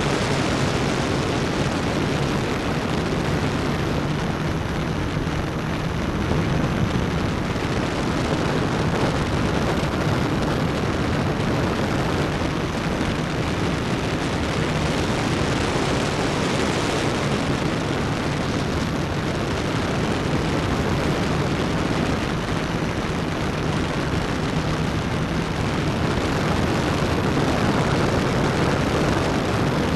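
S650 hexacopter's six electric motors and propellers running in flight: a steady hum over a dense rushing noise, heard from a keychain camera mounted under the battery, right beside the propellers.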